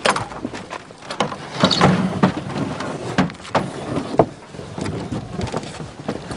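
Irregular knocks and rattles over a steady rumble, from a truck bed loaded with apple crates jolting along.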